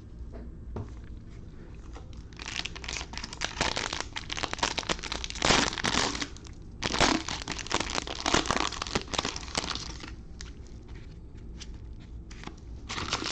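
Plastic wrapper of a trading card pack being torn open and crinkled in the hands. The crackling runs from about two seconds in to about ten seconds in, then returns briefly near the end.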